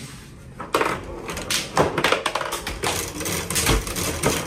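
Rapid hard clacking and rattling knocks of a tabletop game in fast play, sparse at first and then a dense run of sharp knocks from under a second in.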